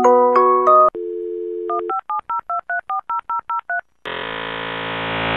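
Dial-up modem connection sound effect: the last chime notes end, a steady dial tone sounds for about a second, then a quick run of about ten touch-tone dialing beeps, and from about four seconds in the modem's handshake sets in as a dense hissing mass of tones.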